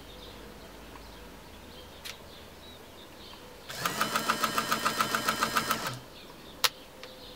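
Bernina 117-K sewing machine stitching a short run: about four seconds in, the motor hums up and the needle pumps evenly at about seven stitches a second for roughly two seconds, then stops. A single sharp click follows shortly after.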